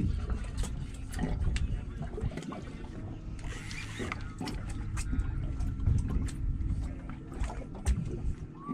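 Low rumble of the boat's twin outboard motors and wind on the microphone, with irregular sharp clicks and knocks from the rod and reel being worked against a heavy fish.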